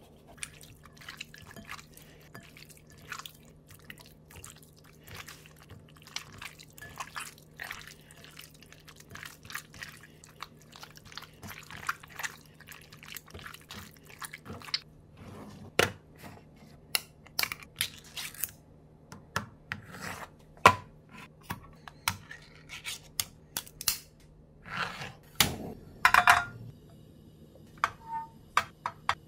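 Hands kneading raw chicken pieces with minced garlic and black pepper in a glass bowl: a steady stream of small wet squelches and clicks. Near the end come a few louder knocks and clatters.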